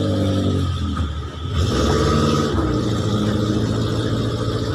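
Off-road 4x4's engine revving as the vehicle pulls away. It drops off briefly about a second and a half in, then picks up again and keeps running under load.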